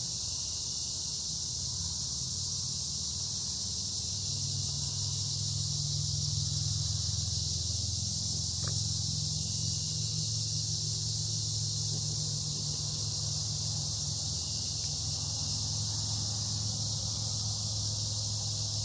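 Steady high-pitched chorus of crickets and other insects at dusk. A low steady rumble underneath grows louder about four seconds in.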